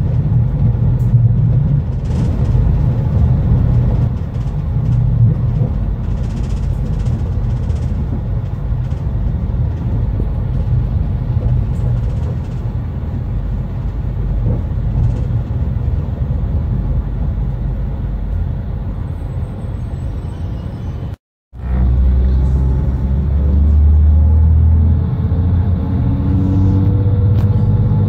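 Diesel regional train heard from inside the carriage, running along the line with a steady low rumble and a few wheel-on-rail clicks. After a brief cut, a steadier engine hum with held tones as the train pulls away from a stop.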